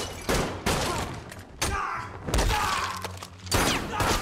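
Fight scene sound effects: a rapid series of thuds and blows, with men grunting and groaning, over a low, steady music score.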